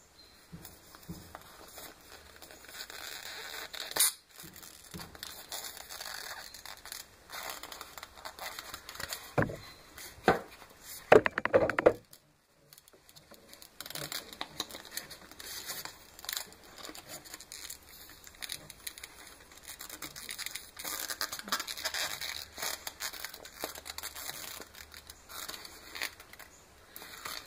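Small objects being handled on a wooden workbench: irregular rustling and crinkling, with a sharp click about four seconds in and a cluster of louder knocks and rattles shortly before the middle. The sound drops out completely for about a second and a half just after these knocks.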